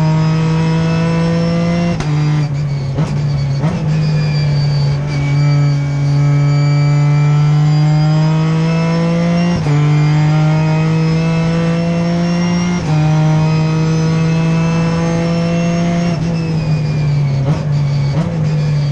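Ginetta G55 race car's engine heard from inside the cockpit, accelerating hard through the gears: its pitch climbs steadily, then drops sharply at each quick upshift, several times over. Near the end the pitch falls away as the car slows, with a few short throttle blips.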